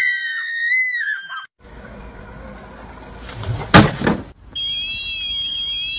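A high, wavering whine fades out. Then a moose's hoof strikes a robotic lawnmower with one loud thump, and the mower's alarm sounds a steady high tone with a repeating warble, which cuts off suddenly.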